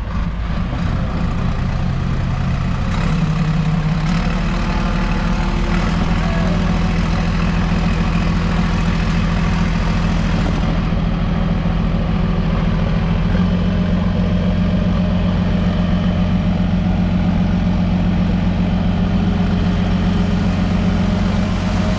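Heavy truck engine running steadily, with its pitch stepping up twice.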